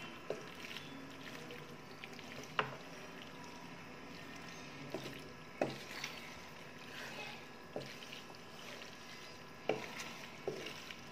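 A wooden spatula stirring and turning sauced macaroni in a metal pan, with soft scraping and sharp knocks of the spatula against the pan at irregular moments, every second or two.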